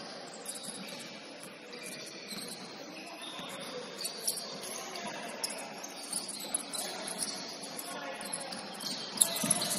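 Basketball shoes squeaking on a hardwood court: many short, high chirps scattered irregularly as players cut and run, with one sharp knock about nine seconds in.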